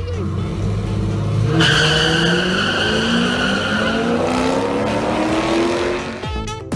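Drag-racing cars launching down the strip: engines holding a steady low note, then revving up about a second and a half in and climbing steadily in pitch as they accelerate away. A high tire squeal rides over the first couple of seconds of the launch.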